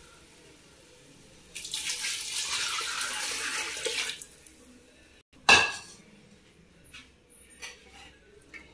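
Coconut milk poured from a pan into an aluminium pot of masala: a steady splashing pour lasting about two and a half seconds. About five and a half seconds in comes one sharp metal clank, the loudest sound, followed by light clinks and scraping of a steel ladle stirring in the pot.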